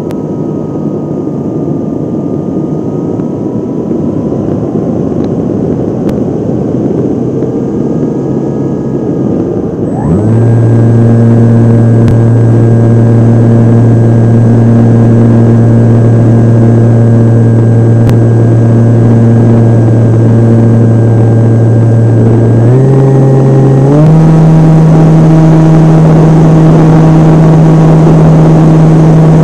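Onboard sound of a Volantex Ranger RC plane in flight: wind rushing past with a faint motor whine for about ten seconds, then the electric motor and propeller throttle up to a loud, steady drone that steps up in pitch twice in the last few seconds.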